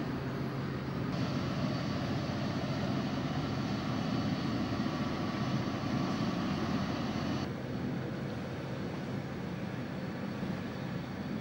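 Steady drone of a boat's engine with wind and water noise. The hiss shifts abruptly about a second in and again about seven and a half seconds in.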